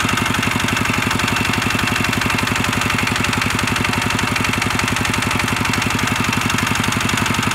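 Kubota walking tractor's single-cylinder diesel engine running steadily, with a rapid, even knocking beat.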